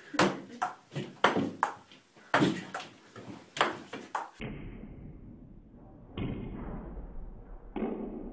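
A table tennis ball clicking on the table and paddle as it is batted back and forth by a player and a cat: sharp ticks about every half second. After about four seconds the sound turns duller, with a steady low hum and a couple of muffled knocks.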